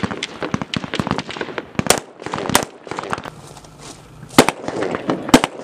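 Rifle gunfire on an outdoor range: many shots in quick, irregular succession over the first two seconds, then a few louder single shots spaced about a second apart.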